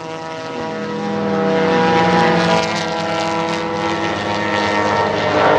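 Several race car engines at high revs, heard from trackside as a pack of cars passes, their notes overlapping and rising and falling in pitch. The sound swells about two seconds in and again near the end.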